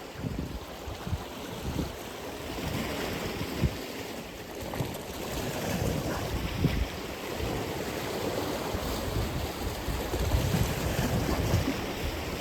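Atlantic Ocean waves, a steady wash of surf, with gusts of wind rumbling on the microphone.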